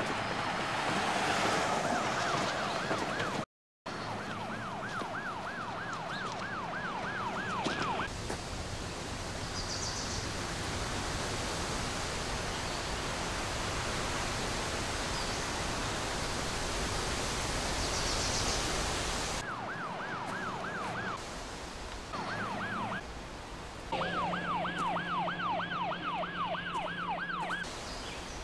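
Emergency vehicle siren in a fast yelp, its pitch rising and falling several times a second. It sounds in several stretches, breaking off and coming back, over a steady rushing noise.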